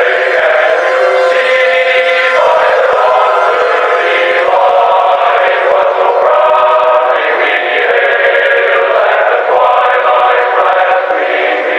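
A choir singing a national anthem in long held notes, thin-sounding like an old broadcast, with the deep and high tones cut away.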